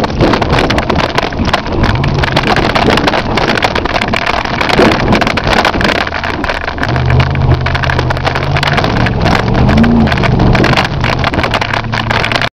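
1984 Plymouth's 318 V8, exhaust open at the manifolds with no pipes behind them, running hard as the car is driven over a rough dirt track, heard from inside the cabin. The engine note rises and falls, over a constant clatter and knocking from the body and suspension.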